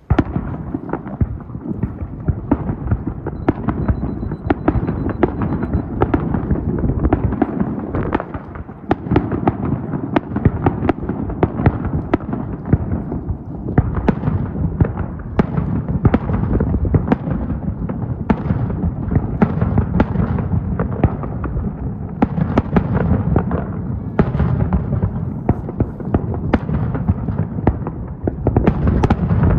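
Fireworks display in a dense barrage: many aerial shells bursting in quick succession, several bangs a second overlapping into a continuous rumble, starting abruptly.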